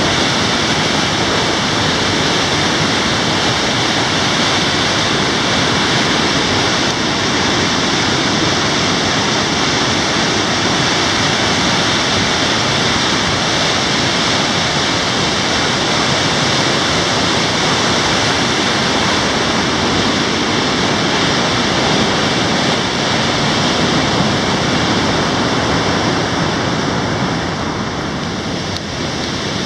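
Flood-swollen river cascading through a rocky gorge: a loud, steady rush of white water, a little quieter near the end.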